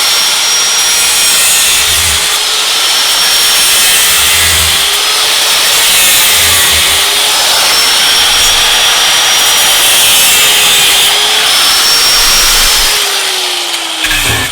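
Small handheld power tool running at speed while cutting away the plastic of a battery-pack tray, with a rasping, scraping noise. The motor pitch sags slightly several times as it is pressed into the plastic, and it winds down near the end.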